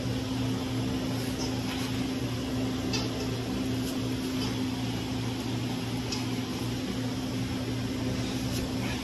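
A machine running with a steady low hum and an even whooshing noise, with a few faint ticks over it.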